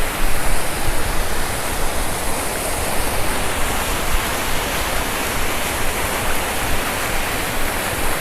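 Water pouring over a full, overflowing small river dam: a steady, loud rush of water.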